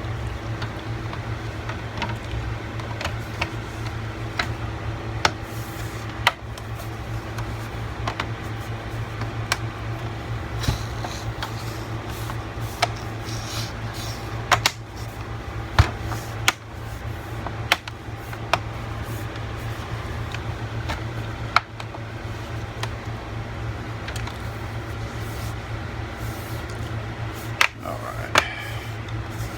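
Scattered sharp clicks and taps of a laptop's plastic and metal parts being handled and fitted back together, over a steady low hum.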